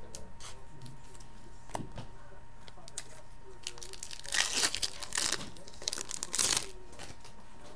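Foil wrapper of a Fleer Ultra hockey card pack being torn open and crinkled, in three crackly bursts over about two seconds, starting about four seconds in. Before it come a few light clicks of cards being handled.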